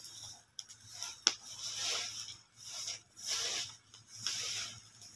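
Dry leaves being swept across dirt ground: a rhythmic rustling swish about once a second, with a sharp click a little over a second in.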